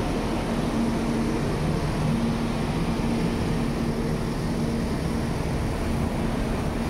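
Farm tractors' diesel engines running steadily with a constant hum, over a steady rushing noise, as they pass spraying disinfectant through the street.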